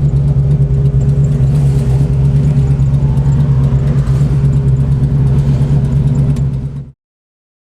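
Chevrolet 502 big-block V8 crate motor, fitted with a cam and a billet Alien intake, running steadily in a 1970 Chevelle SS; it cuts off suddenly near the end.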